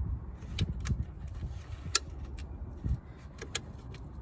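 Hand tools being handled: a few sharp metal clicks and clinks of sockets being picked out and tried on a bolt, spread unevenly, with the clearest about two seconds in and a quick pair near three and a half seconds.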